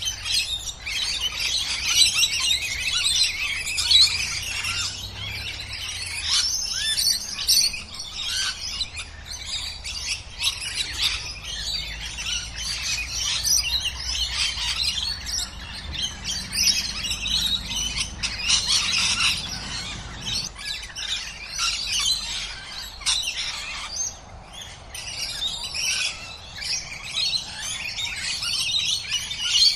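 A flock of rainbow and scaly-breasted lorikeets chattering and screeching continuously, many shrill calls overlapping.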